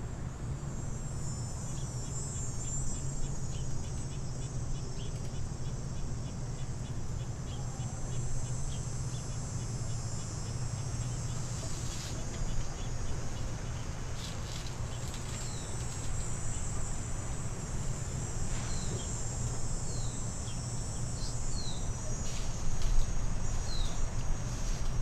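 Insects chirring steadily and high-pitched in a garden, with a rapid ticking about three times a second in the first half and a few short falling chirps in the second half, over a low steady hum.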